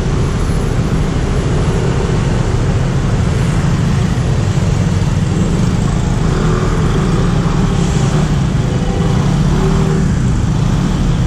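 Motorcycle running steadily on the move through city traffic, its engine hum under a dense rush of road and wind noise.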